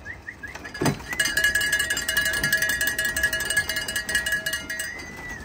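A trilling call whistle blown in one long blast of about four seconds, ending with a short drop in pitch. It is the signal calling young racing pigeons back into the loft.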